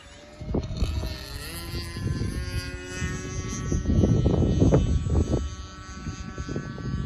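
E-flite Cessna 150 RC model plane's electric motor and propeller whining, the pitch rising in the first few seconds and then holding steady, over a gusty low rumble that is loudest in the middle.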